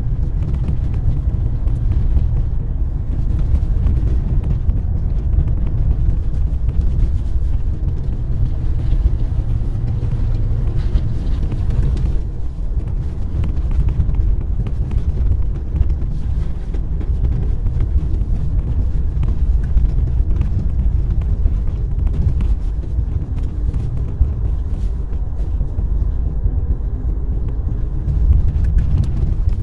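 Car driving along a snow-covered road: a steady low rumble of engine and tyres.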